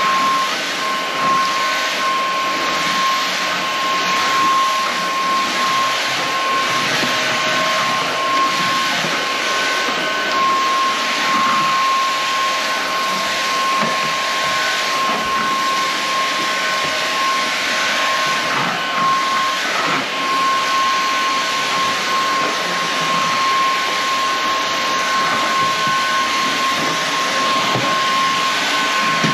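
Inse S610 cordless stick vacuum running steadily on the floor: a rushing hiss of airflow with a steady high-pitched motor whine.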